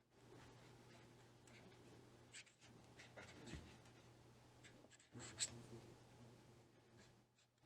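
Faint scratching of a pen on paper as lines are drawn, with one sharper click about five and a half seconds in, over a faint low hum.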